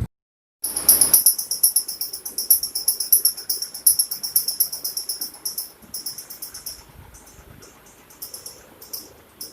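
Ceiling fan making a rapid, high-pitched chirping squeak, many chirps a second, which grows fainter and more broken after about six seconds.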